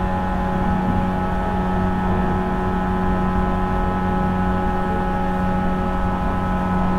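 Inside a JNR 475 series electric multiple unit, heard from the vestibule at the car's end: a steady hum of several fixed tones over a low rumble, holding the same pitch throughout.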